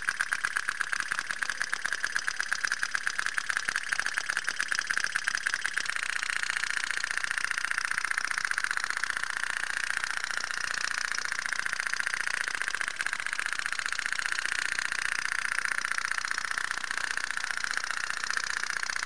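Tin phat-phat (pop-pop) steam boat sputtering with a fast, even putt-putt rattle: its candle-heated boiler is driving out steam through one pipe and drawing water in through the other. The pulses grow slightly louder and smoother about six seconds in.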